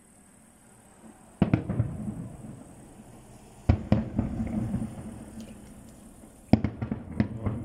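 Aerial firework shells bursting: a boom about a second and a half in, another near four seconds, and a quick run of cracks around six and a half seconds, each trailing off in a rolling rumble.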